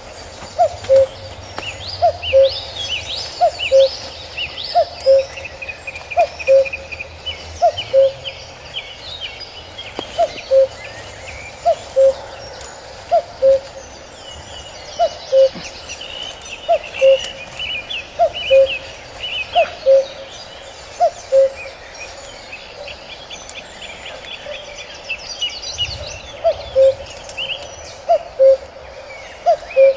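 Birds calling: one bird repeats a low, hollow two-note call, a higher note dropping to a lower one, about every second and a half, over scattered higher chirps and trills from other birds.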